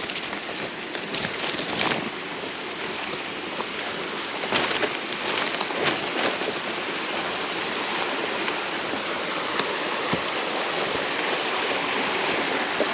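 Small mountain creek tumbling down a steep drop with a steady rush of water, with a few short clicks or crackles in the first half.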